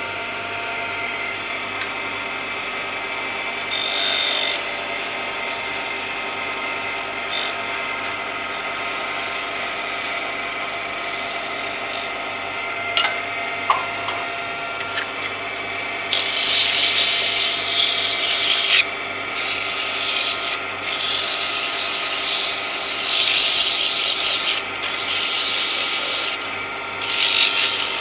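A woodturning lathe runs with a steady hum while a turning tool rubs and scrapes against the spinning wooden workpiece. From a little past halfway the tool work gets louder, coming in on-off rasping strokes every second or two.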